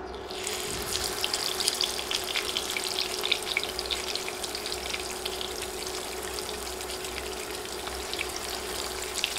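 Spice-rubbed pomfret sizzling and spitting as it goes into hot oil in a frying pan. The crackle starts sharply about half a second in, is busiest over the first few seconds, then settles into a steady sizzle.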